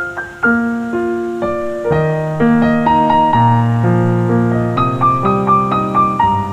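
Background piano music: a melody of separate notes over chords, with deeper bass notes joining about two seconds in.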